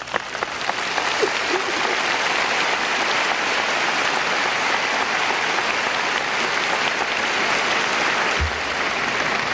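Large audience applauding: steady, dense clapping that builds over the first second or so and eases off slightly near the end.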